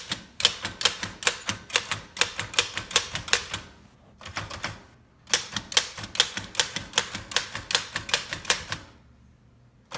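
Oliver No. 11 typewriter being typed on with the figure-shift key locked, so the figure characters print: quick, sharp keystroke clacks in two runs, with a pause of about a second and a half between them. The typing stops about a second before the end.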